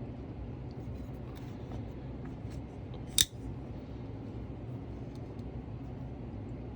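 Strider XL folding knife being handled: one sharp metallic click about three seconds in, with a few faint small ticks, over a steady low hum.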